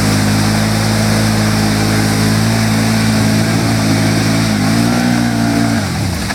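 ATV engine held at high, steady revs, rising a little about four and a half seconds in, then dropping off near the end.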